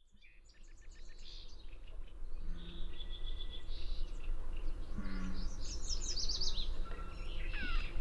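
Gray catbird singing a long run of varied short chirps and quick falling notes, over a steady low background rumble. The sound fades in from silence at the start.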